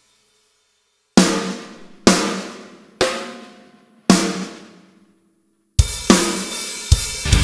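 Sampled 7x14 Noble & Cooley steam-bent snare drum from Superior Drummer 3 played as four single hits about a second apart, each ringing out, auditioned while its tuning is adjusted. About six seconds in, a full sampled drum kit beat with kick drum starts and keeps going.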